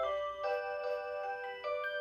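Rhythm Clock Aria Cantabile melody alarm clock playing its electronic 'Aurora Sound' melody: clear bell-like chords of several tones changing about every half second.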